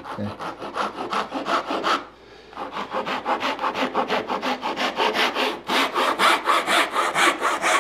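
Hand saw cutting across the end of a softwood window muntin in quick, short, even strokes, about five a second. The sawing breaks off briefly about two seconds in, then resumes.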